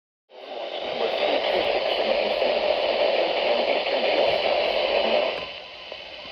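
NOAA weather radio receiver hissing with static, cutting in abruptly, with a faint broadcast voice buried under the noise; the static drops in level about five and a half seconds in.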